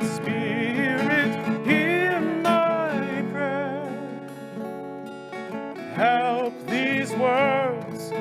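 Acoustic guitar accompanying singing, the held sung notes wavering with vibrato; the voice drops out for a few seconds in the middle while the guitar carries on, then comes back in.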